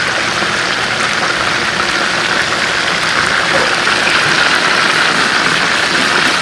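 Skin-on chicken thighs sizzling steadily in hot oil in a large skillet.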